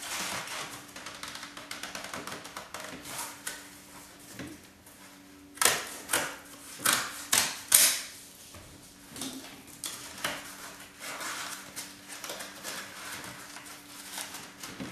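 Stiff cardboard rustling and scraping against a woven fiber rush seat as pieces are handled and tucked tightly into the seat's cavities, with a run of about five louder scrapes about halfway through as a piece is forced in with a tool.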